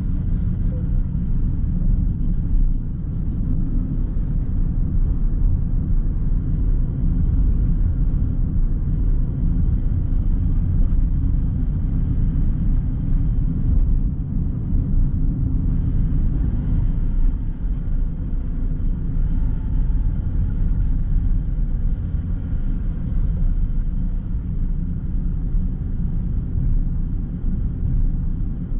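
Steady low rumble of a car on the road, tyre and engine noise while driving.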